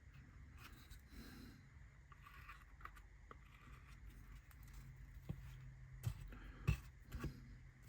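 Faint clicks and taps of small laser-cut kit parts being handled and set into place, a handful of them in the second half, over a steady low hum.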